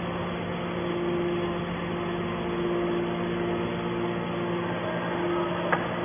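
Hydraulic can baler's electric motor and pump running with a steady hum, with one short sharp click near the end.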